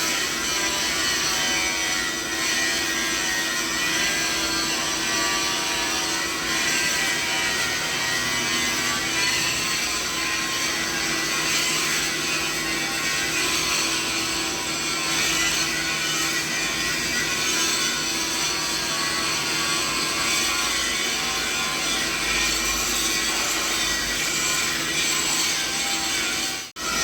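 Steady mixed machinery noise spanning roughly 0.25 to 6 kHz, a dense hiss with several steady tones running through it. It cuts out for an instant near the end.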